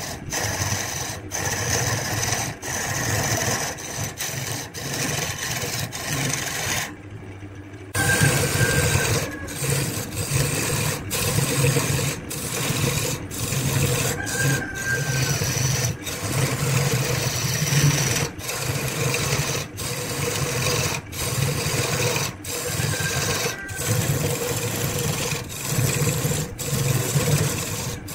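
Wood lathe running with a steady low hum while a tool scrapes the spinning wood. The sound drops away for about a second roughly a quarter of the way in.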